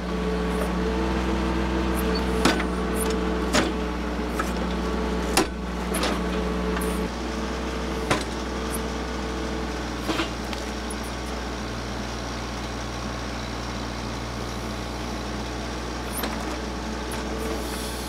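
TYM 2515 compact tractor's diesel engine running steadily as its backhoe attachment digs and pries out a root-bound stump. There are several sharp cracks and knocks in the first ten seconds, and the engine note changes about seven seconds in.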